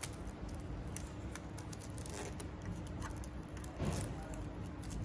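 Adhesive binding tape being peeled by fingers and tweezers from the edge of a resin 3D printer's LCD screen: faint rustles and small clicks, with a louder rustle about four seconds in. A faint steady hum runs underneath.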